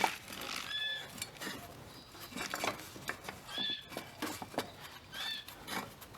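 Front roller shaft of a Scott Bonnar 45 reel mower being worked out of its roller: metal scraping and clinking, with a few short squeaks.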